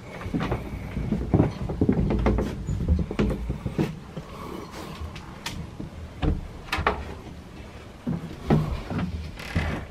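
Irregular knocks, thumps and clicks of someone moving about and handling things in a small wooden yacht cabin, heard close and boxy.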